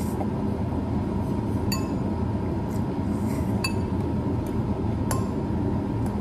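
Metal fork clinking against a noodle bowl: three ringing clinks about a second and a half to two seconds apart, with fainter taps between, over a steady low background hum.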